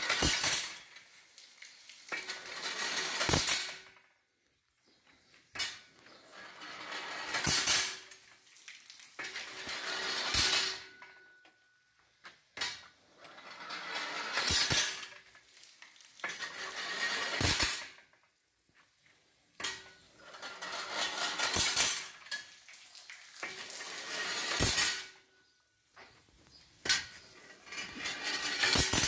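Homemade steam-powered water pump cycling: a hiss swells for a second or two and ends in a sharp metallic clank, then goes quiet, repeating about every three to four seconds.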